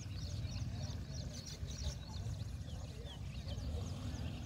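Many birds chirping in a dense chorus of short, quick high chirps, over a steady low rumble.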